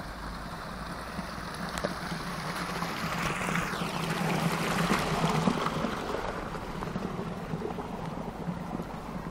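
Water rushing and gurgling along a narrow stone-lined channel beside a path, a steady rush that swells in the middle, with a brief falling whistle a few seconds in.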